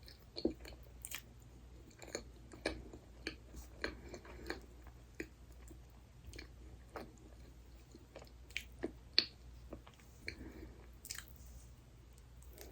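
Close-miked chewing and biting of soft dessert, with irregular wet mouth clicks and smacks.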